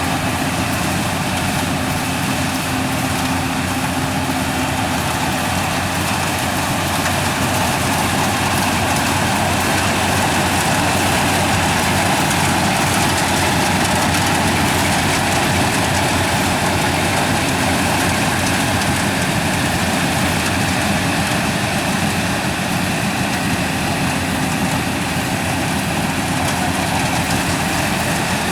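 Yanmar rice combine harvester's diesel engine and threshing machinery running steadily, a loud even mechanical hum that barely changes.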